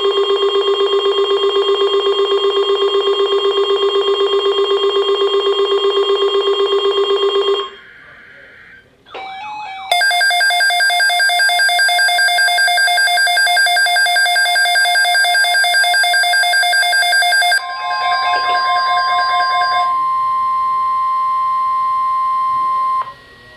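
Electronic Emergency Alert System alert tones. First comes a buzzing, rapidly pulsing tone for about eight seconds. After a short gap comes a higher, rapidly pulsing alarm. A steady single tone then starts and holds for about five seconds, ending just before the National Weather Service announcement.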